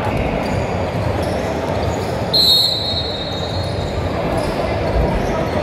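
Crowd chatter in a large indoor sports hall, with a referee's whistle blown once, short and shrill, about two and a half seconds in.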